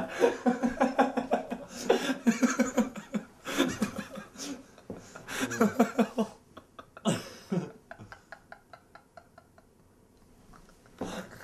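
Hearty laughter in loud bursts that break into a quick run of short pulses and fade out, with another burst near the end.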